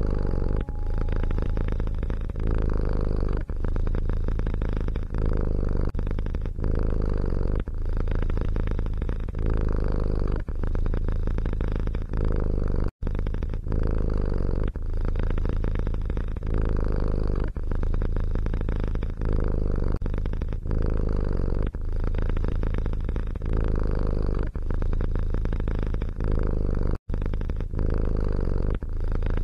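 Domestic cat purring, the purr rising and falling with each breath about every second and a half. There are two brief silent breaks, one about halfway through and one near the end.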